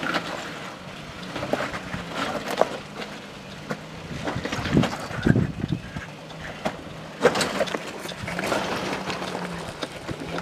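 Pickup truck engine running steadily at low revs while crawling over jagged lava rock, with scattered knocks and scrapes of tyres and underbody on the rock and a few heavier thumps about five seconds in.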